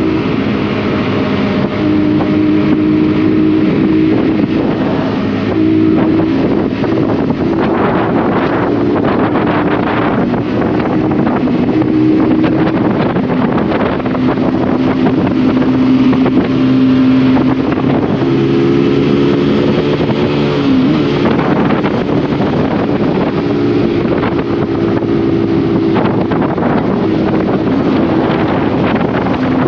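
Honda CBR150R single-cylinder four-stroke engine running on the road, its note stepping up and down in pitch several times as the throttle and gears change, with a quick swoop about two-thirds of the way through. Wind and road noise run under it.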